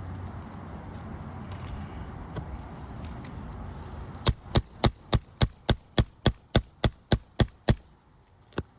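Roofing hammer rapidly striking a nail-removal tool, driving out a roofing nail from under an asphalt shingle. There are about thirteen quick metal strikes, about four a second, starting about halfway in, then one more strike near the end. A low rumble comes before the strikes.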